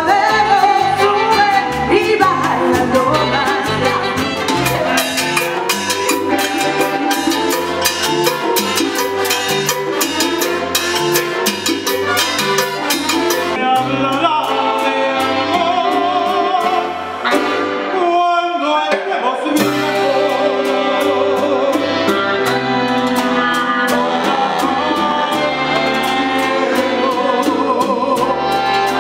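Live salsa orchestra playing, with a horn section, steady percussion, bass and a male lead singer. About 17 seconds in, the bass drops out for a couple of seconds before the full band comes back in.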